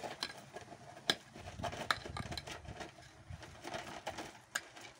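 Scattered light knocks, clinks and scrapes from sweeping up fallen apples and muck with a broom and shovel, the loudest knocks about a second in, near two seconds in, and again near the end.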